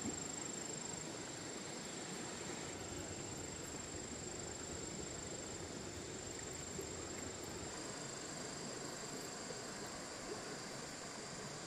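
Insects chirring steadily at one high pitch, a second, lower-pitched insect joining about two-thirds of the way through, over a steady outdoor hiss.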